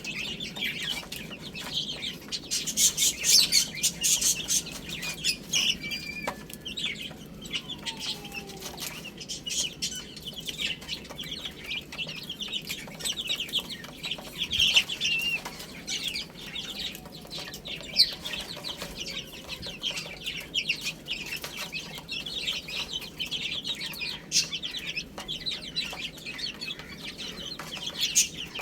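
Baby chicks peeping continuously, many short high chirps overlapping, with scattered sharp clicks among them.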